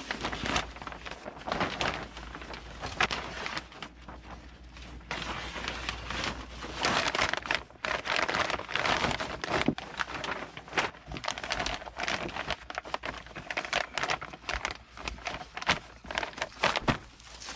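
Thick 6-mil polyethylene vapour barrier sheeting crinkling and rustling irregularly as it is pulled tight and smoothed by hand over a boat hull.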